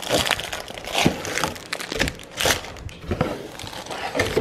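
Foil pouches crinkling as they are handled and pulled out of a cardboard box, in irregular crackly bursts.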